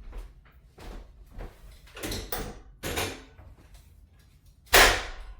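Sounds of hands-on chiropractic work on a treatment table: a few soft knocks and shuffling movements, then one loud, sharp clack near the end.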